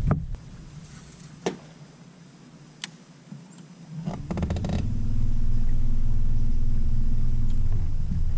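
A fish splashing into the water right at the start, a few light ticks, then after a quick run of clicks a bow-mounted electric trolling motor starts a steady hum about five seconds in.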